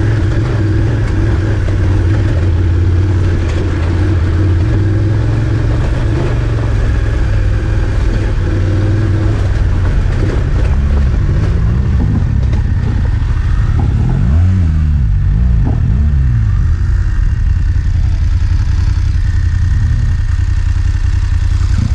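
BMW GS adventure motorcycle's engine running while riding slowly up a dirt trail. From about halfway through, the engine note rises and falls in short revs as the bike slows to a stop, then it idles.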